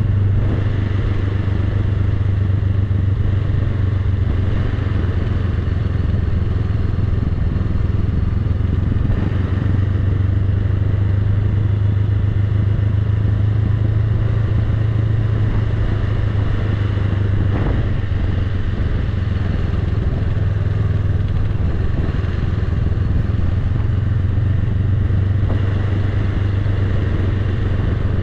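Honda Rebel 500's parallel-twin engine running steadily at low, even revs as the motorcycle rolls slowly downhill, with road noise over it.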